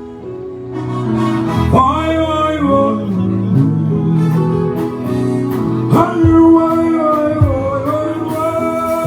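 Live band music with a singer holding two long, wavering sung phrases, the first starting just under two seconds in and the second at about six seconds, over steady sustained instrument chords.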